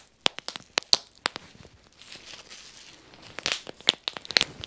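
Bubble wrap being twisted between the hands, popping in quick irregular runs of sharp pops: one cluster in the first second and a half, another from about three and a half seconds in.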